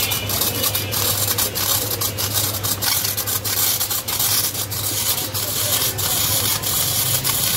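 Metal blade held against a spinning frozen steel drum, scraping off shaved ice in a continuous rasping hiss with many short, uneven scrapes. A steady low hum runs underneath.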